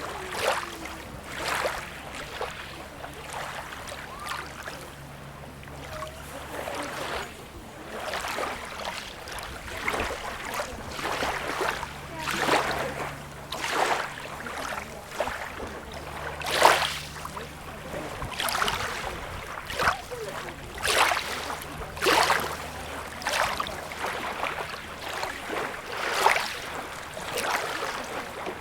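Sea water lapping and splashing at the shore in short, irregular washes, one every second or so, over a faint low hum that comes and goes.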